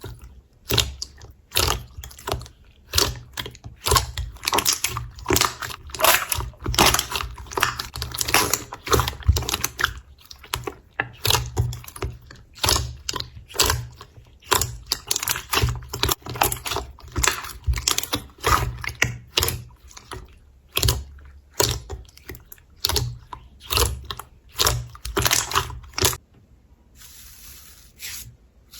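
Slime being worked by hand, giving rapid sharp crackling clicks and pops. Near the end the clicks stop and a short soft hiss follows.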